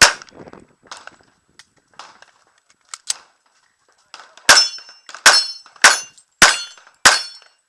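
Handgun shots on a competition course of fire: one loud shot at the start and a few fainter cracks about a second apart, then a quick string of five loud shots roughly 0.6 s apart near the end.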